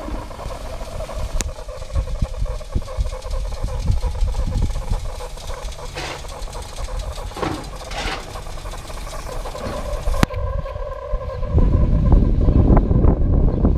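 Miniature 15-inch-gauge Pacific steam locomotive standing in steam, hissing steadily with a faint held tone. In the last couple of seconds wind rumbles on the microphone.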